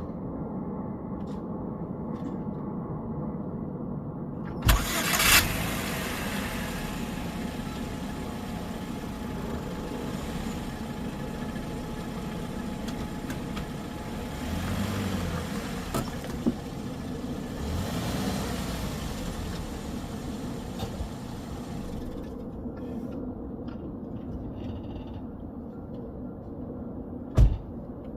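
2009 Chevy Cobalt engine starting about five seconds in and then running steadily, with a sharp thump near the end.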